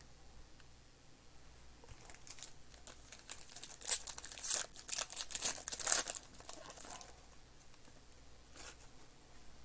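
Trading-card packaging crinkling and being torn open by hand: a run of crackly rustles and rips, loudest around the middle, with a couple of brief crinkles near the end.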